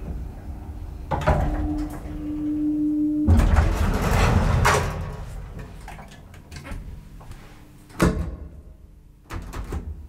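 Elevator arriving at a floor: a steady tone sounds for about two seconds, then the car doors slide open with a loud rush. A sharp knock follows about eight seconds in, and another near the end.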